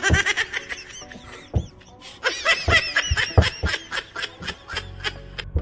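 A woman laughing in two bouts of quick, repeated "ha-ha" pulses: one at the start lasting about a second, and a longer one starting about two seconds in.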